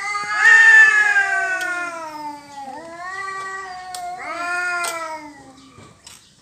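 Cats yowling in a territorial standoff: long drawn-out wailing yowls, three in a row, the loudest starting about half a second in and sliding down in pitch.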